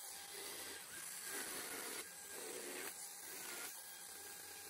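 Electric chainsaw cutting into a block of wood. The cutting noise comes in several short passes about a second each.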